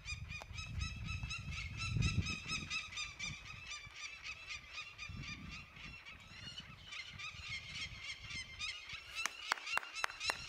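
Peregrine falcons giving their harsh alarm call, a fast, evenly repeated kak-kak-kak, in defence of the nest ledge against the climber. The calls come sharper and louder near the end.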